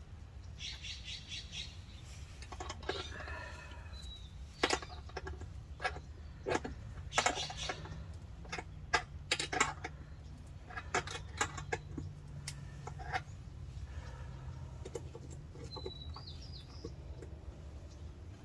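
Scattered clicks, taps and short rattles of hands working on the propane forge's metal burner and its fittings, over a low steady hum.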